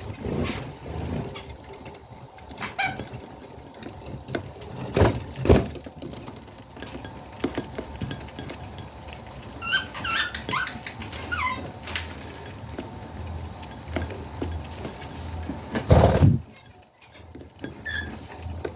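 Budgies giving a few short chirps, a cluster of them about halfway through, over a low background hum. Three loud knocks, two close together about a third of the way in and one near the end.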